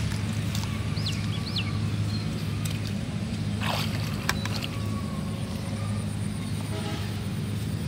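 A motor drones steadily, low-pitched and even. About three and a half seconds in comes a short splash of water.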